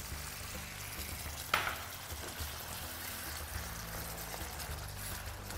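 White wine poured into a hot paella pan of frying rice, chorizo and peppers: the pour sets off a sizzle, with one sudden loud hiss about a second and a half in that quickly dies back to a steady sizzle.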